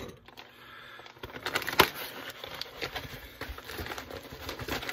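A cardboard box being opened by hand: irregular scrapes, taps and crackles of the flaps and packing, starting about a second in, with one sharp click near two seconds.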